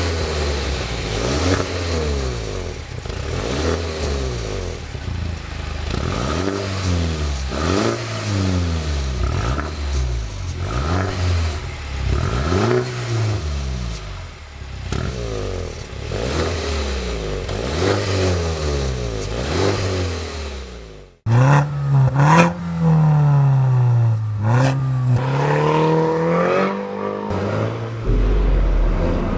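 Mini Cooper S F56 turbocharged four-cylinder through a REMUS sports exhaust, blipped repeatedly from idle, each rev rising and falling. After an abrupt cut about 21 seconds in, louder revs follow with sharp pops and crackles from the exhaust.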